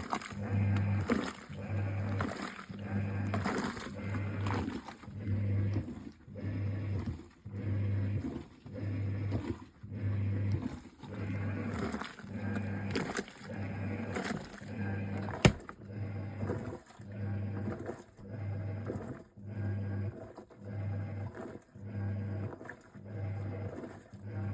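Giantex EP22761DE mini top-load washing machine in its wash cycle: the motor hums in pulses about once a second as the impeller drives back and forth, with water churning. A single sharp click about fifteen seconds in.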